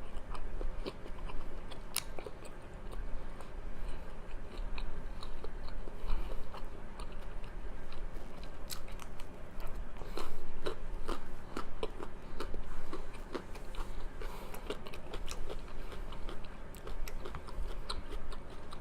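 Close-miked chewing and biting of chicken momo dumplings, with a steady run of small mouth clicks and smacks and some crunch.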